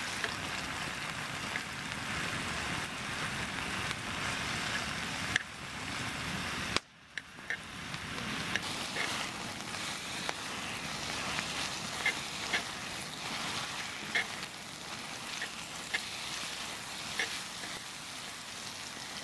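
Pork belly sizzling on a hot griddle, fat spitting in small pops now and then. The sizzle cuts out for a moment about seven seconds in, then carries on.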